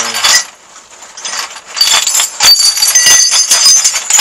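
Metal prosthetic leg parts clinking and rattling together as they are handled and lifted in a bag, with the bag rustling. The clatter is sparse at first and becomes dense and continuous from about two seconds in, with short ringing metallic notes.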